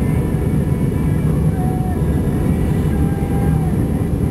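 Steady low rumble of a jet airliner's cabin in flight: engine and airflow noise heard from a window seat of an Airbus A320-family plane.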